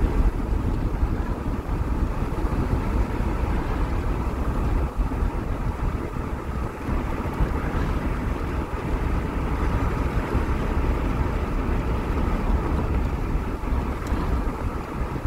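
Steady road and engine rumble inside a moving car's cabin, with some wind noise on the microphone.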